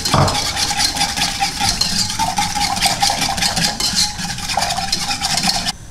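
Small wire whisk beating quickly against the inside of a metal saucepan, a rapid scratchy rattle of strokes while mixing a liquid glaze. It stops abruptly just before the end.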